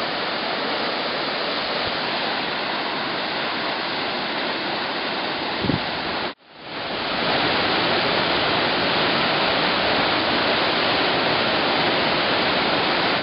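Steady rush of water falling at a waterfall, Taranaki Falls. About six seconds in there is a brief bump, then the sound cuts out for a moment and fades back in slightly louder.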